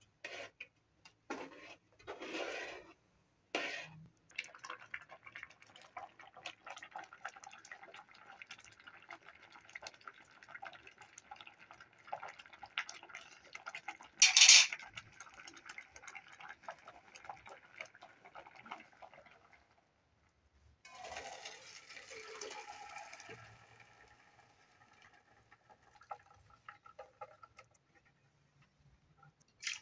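Water and rice handled in an aluminium cooking pot: a few short splashes at first, then a long steady crackling, one loud clank of the metal pot about halfway, and water pouring off the rice a little later.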